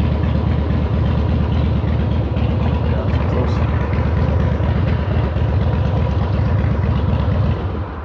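Motorcycle engine idling close by, a steady rapid low pulsing that fades and stops just before the end.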